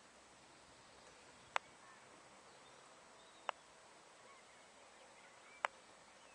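Three short, sharp clicks about two seconds apart over a faint outdoor background with distant bird calls.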